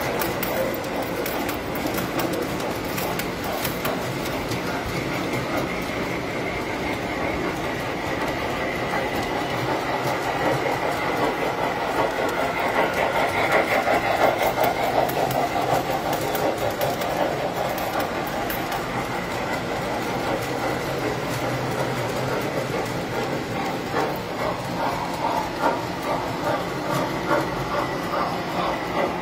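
Tinplate electric model trains running on three-rail metal track: a steady running noise with a thin high tone and fine clicks, louder about halfway through as a train passes close.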